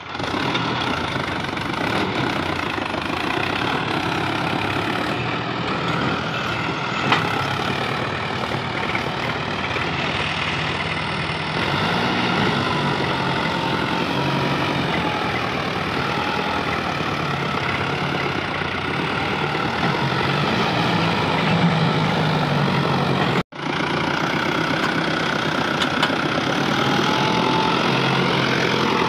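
Sonalika DI 60 tractor's diesel engine running steadily under heavy load as it strains to haul a loaded trolley out of soft mud, front wheels reared up off the ground. The sound drops out for an instant about 23 seconds in.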